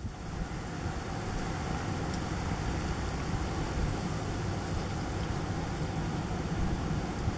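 Steady outdoor background rumble, strongest at the low end, with no distinct events.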